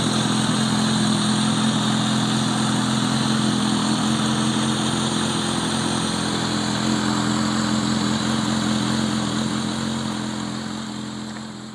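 Vintage Kawasaki motorcycle engine idling steadily, fading out near the end.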